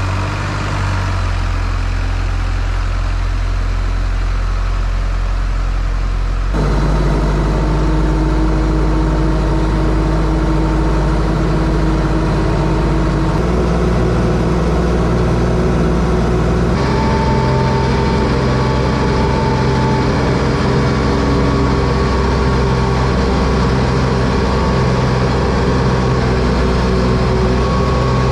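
Telehandler engine running steadily as the machine drives, carrying a welder on its forks. The engine note shifts abruptly twice, about six seconds in and again near the middle.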